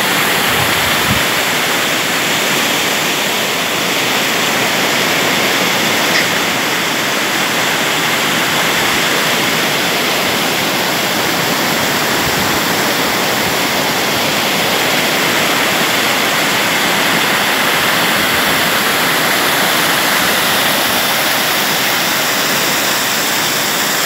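Creek waterfall, foaming water rushing over rocks: a loud, steady rush of water.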